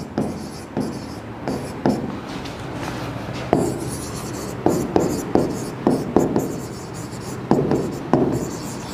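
Pen tapping and scratching on the glass of an interactive smart-board screen as words are handwritten: irregular sharp taps, a few a second, over a faint steady low hum.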